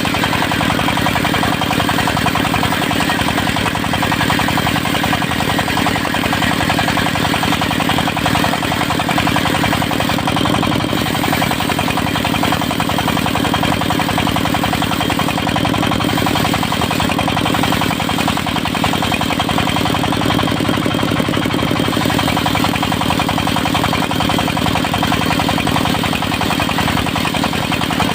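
Engine of a portable circular-saw sawmill running steadily at an even speed, with no change in pitch or load.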